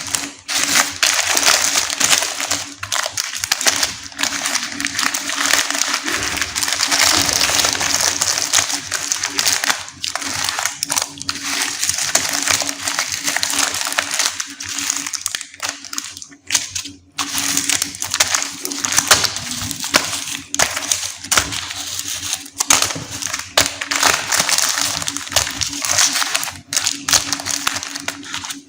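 Plastic and foil candy wrappers being crinkled and torn open by hand, as dense continuous crackling with short pauses, over a steady low hum.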